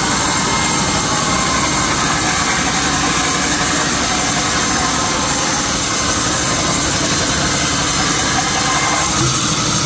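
Sawmill machinery running steadily, a dense, even mechanical noise, with a slight shift in its low hum near the end.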